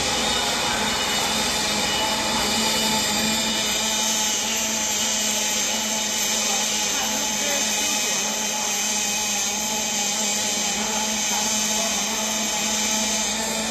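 Automatic narrow-gap welding machine's arc burning steadily on a circumferential seam of a cylinder turned in the machine's chuck, giving a continuous, even hum and hiss.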